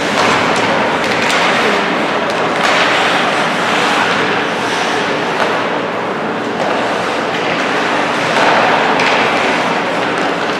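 Ice hockey game in play: skates scraping and carving the ice over a steady din, with scattered sharp clacks of sticks and puck.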